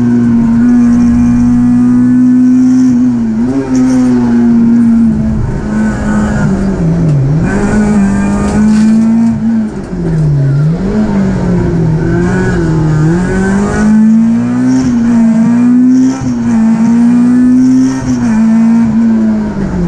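Peugeot 306 Group A rally car's engine running hard at high revs, heard from inside the cabin. Its pitch falls several times as the driver lifts off for bends, dropping deepest about a third and halfway through, and climbs again under acceleration.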